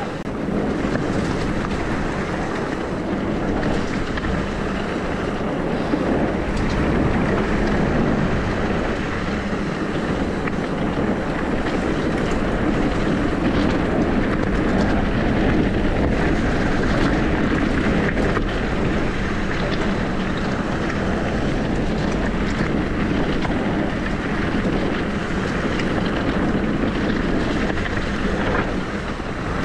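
Wind buffeting the microphone over the steady rumble of an e-bike riding downhill, with small rattles and knocks throughout.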